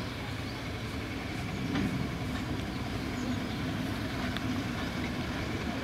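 Diesel train engine running steadily: a low rumble with a steady hum.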